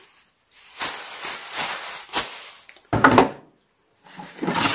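Plastic bags of filter wool rustling and the plastic basket of an Aquael Ultramax 2000 canister filter being handled, with a sharp knock about three seconds in.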